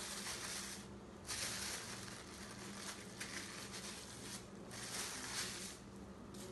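Plastic bag crinkling and rustling in several stretches of a second or so as it is lifted and folded over, pressing a masa turnover closed around its filling.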